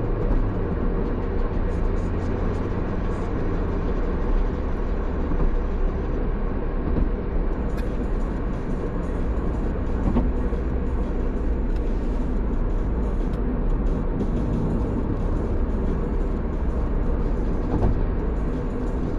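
Steady low drone of a running vehicle, with music underneath.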